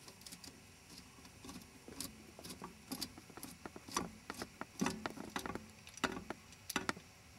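Socket wrench on a universal-joint extension with a Torx bit, turning out the bolt that holds the vehicle speed sensor: faint, irregular metallic clicks and ticks, bunched in short runs.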